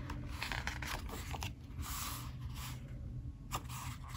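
Pages of a K-pop album photobook being turned by hand, the paper rustling in several short swishes.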